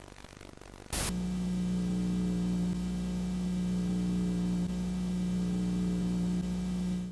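Loud buzzing hum over static hiss, starting suddenly about a second in and cutting off abruptly at the end.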